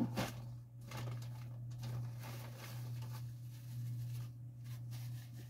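Light rustling and handling of paper food packaging, with a few soft knocks near the start, over a steady low hum.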